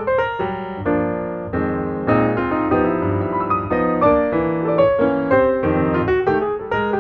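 Background piano music: a flowing melody of quick notes over chords.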